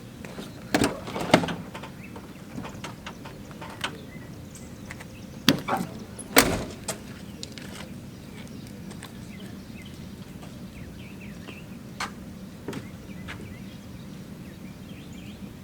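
Several sharp knocks and clunks, loudest about a second in and again between about five and six and a half seconds in, followed by a few lighter clicks, over a low steady hum.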